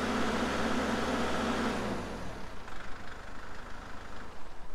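Kubota MX5200 tractor's diesel engine idling, then shut off about two seconds in and running down to a stop.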